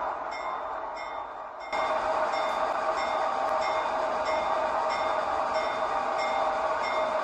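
Diesel locomotive running at low speed, a steady engine drone with a light ticking about twice a second; the sound suddenly gets louder about a second and a half in.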